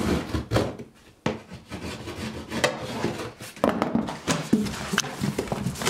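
Packing tape on a large cardboard box being cut open with a small hand tool, then the cardboard flaps pulled and bent open: irregular scraping, rubbing and short knocks.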